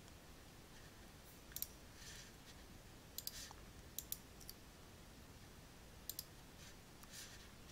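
Computer mouse and keyboard clicks, several in quick pairs, spaced a second or two apart over faint room hiss.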